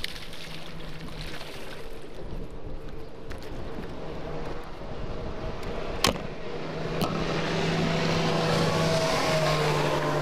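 Outboard motor of a passing boat running steadily at speed, growing louder over the last few seconds as it approaches. A single sharp knock about six seconds in, as the hooked bass is swung onto the boat's deck.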